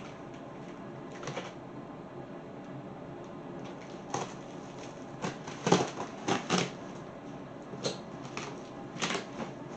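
A taped cardboard shipping box being opened by hand, with irregular clicks and crinkles of tape and cardboard flaps. The handling sounds are scattered through the second half, after a few seconds of faint hiss.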